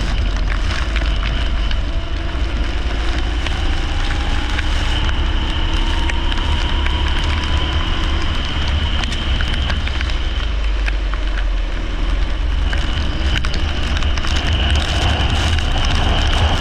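Leisure kart engine running at race pace on a wet track. Its note rises slowly through the first half under a heavy low wind rumble, with a hiss of spray and frequent small ticks.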